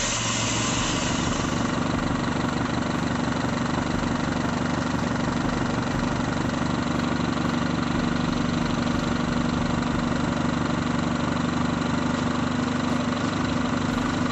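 Fuel-injected Daihatsu Taruna engine idling steadily, just restarted, while the loosened cam sensor is turned to set the ignition timing.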